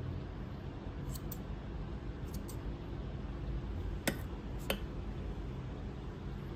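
Hair-cutting scissors snipping through long hair: a few light clicks of the blades, the two sharpest about four and four and a half seconds in, over a steady low hum.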